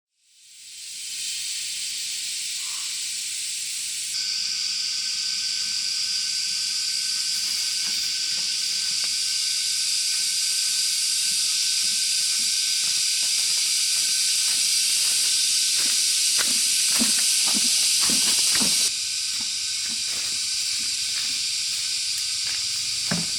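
Steady high-pitched drone of insects, growing louder about four seconds in and dropping back near the end, with a run of sharp clicks and snaps a little after the middle.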